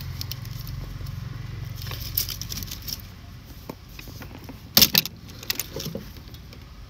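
Metal clinks and rattles of hand tools working on the starter motor of a Hindustan Ambassador's BMC 1.5 L diesel, which is being unbolted because it no longer turns the engine over. The loudest clatter comes a little under five seconds in, and a low steady hum fades in the first half.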